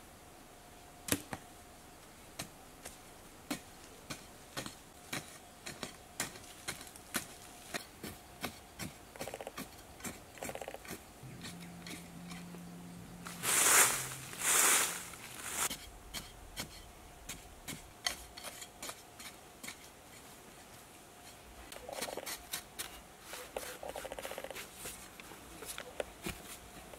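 Wooden digging stick striking and scraping dry, hard earth in short, steady strokes about twice a second. About halfway through, two louder rushing bursts of loose soil being scooped and thrown out by hand.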